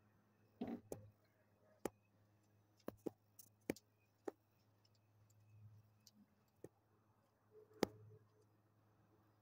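Near silence with a faint low hum, broken by about nine scattered sharp clicks and taps: handling noise from a phone being swung around while filming.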